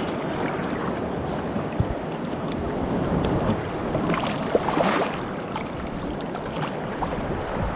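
Sea water washing and sloshing as small waves come into shallow water, with wind buffeting the microphone. A couple of brief knocks stand out, about two seconds in and again near the middle.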